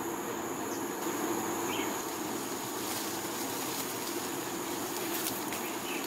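Steady insect drone with two thin high tones held throughout, over a low steady hum of distant traffic. A few faint short chirps come through, about a second in, about two seconds in, and near the end.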